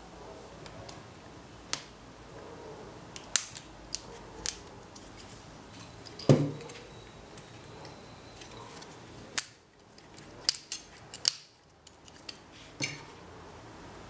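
Thin aluminium ring being cut and peeled off a cast cylinder: scattered sharp snips and crinkling clicks of the metal strip, with one louder knock about six seconds in.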